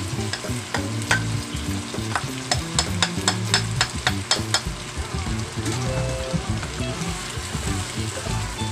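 Chicken and pork pieces sizzling as they fry in oil in a nonstick pan, stirred with a wooden spatula. From about a second in to the middle comes a quick run of sharp clicks as a spoon taps minced garlic into the pan.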